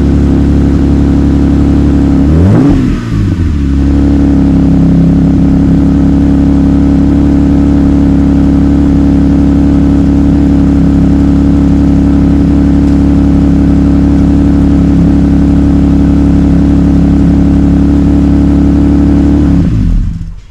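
Exhaust of a Jeep Wrangler JL's 3.6-litre V6 with a Dynomax axle-back rear muffler delete and the front muffler kept: idling, with one quick rev to about 2500 RPM that rises and falls back a few seconds in, then a steady idle until the sound cuts off near the end.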